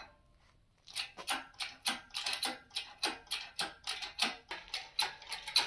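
Engine crane being pumped to lift an engine on its chain: a quick run of sharp metallic clicks and clanks, about four a second, starting about a second in.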